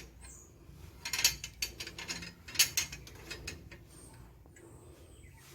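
Metal rip fence (fence guide) being slid into the base plate of a Makita 5806B circular saw and fastened: a handful of sharp clicks and knocks about a second to three seconds in, then light handling.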